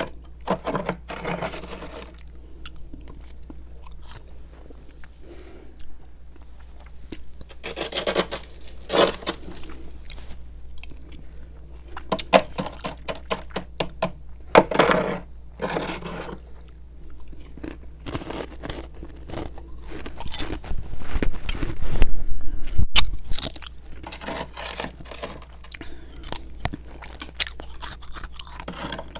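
Freezer frost being scraped off and eaten: bursts of scratchy scraping and crunchy chewing of the ice. There is a louder run of low thumps about two-thirds of the way through.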